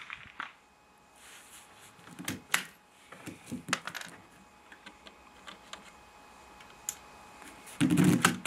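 Bolt of a BSA Century .22 LR bolt-action rifle being worked to reload: a string of sharp metallic clicks and clacks, then a louder, quick cluster of knocks near the end.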